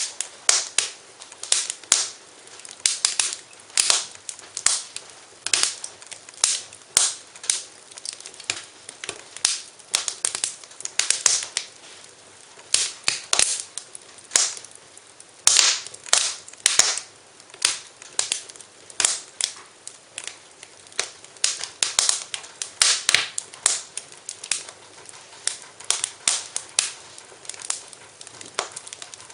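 Wood fire crackling in a fireplace, with irregular sharp pops and snaps several a second over a soft hiss.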